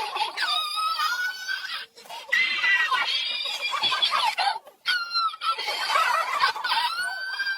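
High-pitched laughing and squealing sounds that glide up and down in pitch, in runs broken by short pauses about two seconds and five seconds in.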